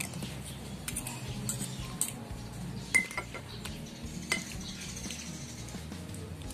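Cutlery clinking and scraping against a dish during a meal: a handful of separate clinks, the loudest about three seconds in.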